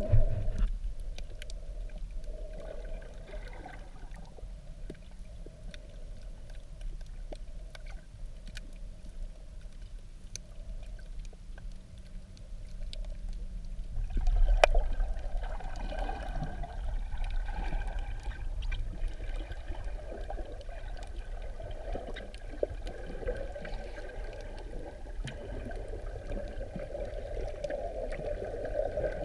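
Underwater ambience on a coral reef as picked up by a camera in its waterproof housing: a muffled low rumble with scattered sharp clicks. About halfway through it grows louder and a steady hum joins in.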